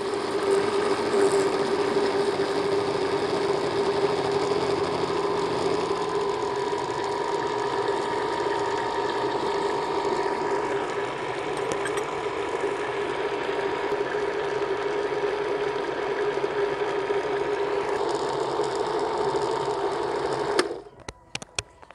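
Electric countertop jug blender running steadily at speed, whipping eggs, sugar and oil into a cake batter, with a steady motor whine; it is switched off and stops suddenly near the end.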